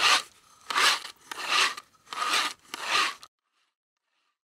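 Paintbrush strokes swished across paper, five in a row about three-quarters of a second apart, stopping a little after three seconds in.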